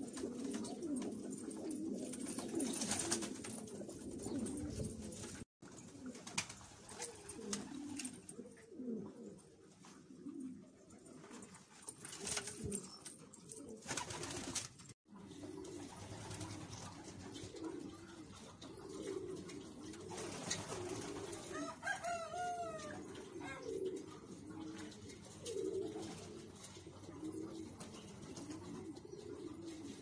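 Domestic pigeons cooing, several low rolling coos overlapping with one another. The sound cuts out abruptly twice, at about five and fifteen seconds in.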